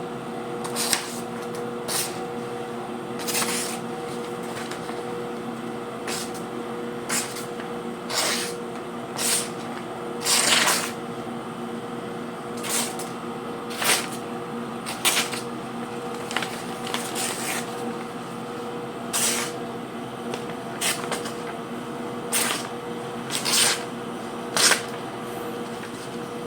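Balisong knife blade being tested: a series of about twenty short rasping strokes, roughly one a second at an uneven pace, over a steady background hum.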